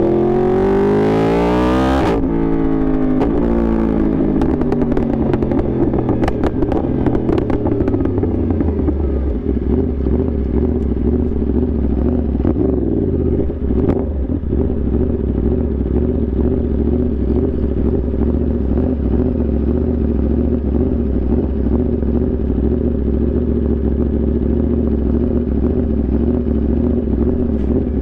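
Yamaha R1's inline-four engine revving hard, then cut off sharply about two seconds in and winding down over several seconds with scattered sharp clicks. It then settles into a steady low engine note.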